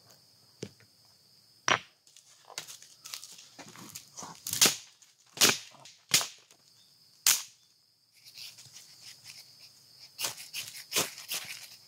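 Dry sticks snapped by hand for campfire kindling: a series of sharp, separate cracks. From about eight seconds in comes a quicker run of short scraping and cracking strokes as the fire lay is worked.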